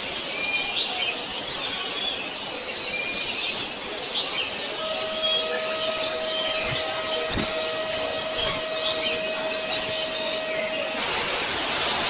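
Many birds chirping and calling in quick, overlapping short notes, with a steady whistle-like tone held for about six seconds midway and a few dull knocks. Near the end, a cut brings in the steady hiss of a tall waterfall.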